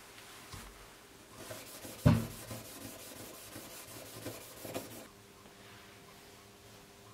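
A flat brass plate rubbed by hand against a dark textured mat in quick back-and-forth strokes, with one sharp knock about two seconds in. The rubbing stops about five seconds in.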